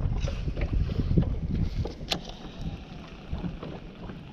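Wind rumbling on the microphone while a baitcasting reel is cranked, with light clicks throughout and one sharper tick about two seconds in. The rumble eases after the first second or so.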